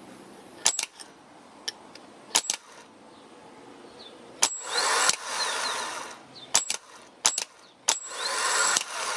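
Mitsubishi starter motor from a 2002 Mazda Tribute, bench-tested off the car: sharp clicks and snaps as a screwdriver bridges the solenoid trigger terminal, and twice the motor spins up briefly, for about half a second near the middle and about a second near the end. The starter is working.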